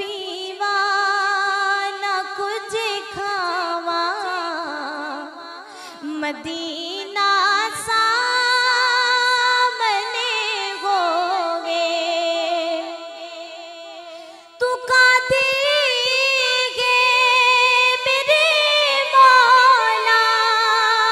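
A young woman's solo voice singing a naat without instruments, in long, wavering, drawn-out notes with heavy vibrato. It dips briefly and comes back louder about two-thirds of the way through.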